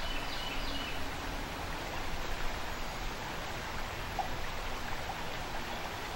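Creek water running over a shallow rocky riffle: a steady rush of flowing water.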